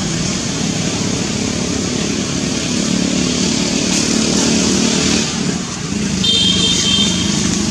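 Steady engine rumble of motor traffic, with a brief high-pitched squeak a little after six seconds in.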